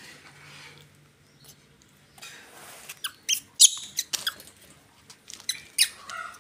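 Baby macaque giving short, high-pitched squeaks in quick clusters, the loudest a little over three seconds in, with more near the end.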